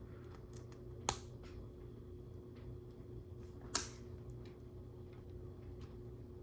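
Plastic Lego bricks being handled and pressed together: scattered small clicks, with two sharper clicks about a second in and just before four seconds, over a faint steady hum.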